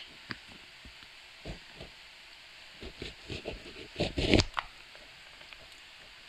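Mayonnaise squeezed out of a plastic squeeze pouch into a glass bowl: scattered short, soft sounds from the pouch and its squirts, with a louder cluster about four seconds in.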